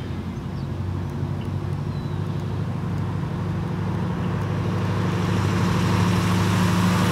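Camaro V8 running at low, steady revs as the car approaches, its low exhaust note growing steadily louder.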